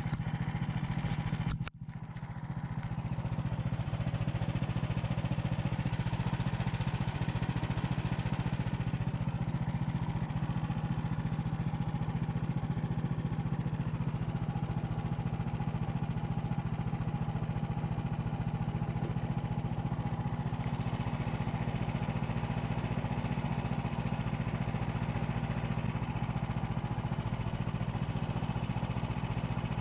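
Engine of a small open off-road vehicle running steadily under way, with a brief break in the sound about two seconds in.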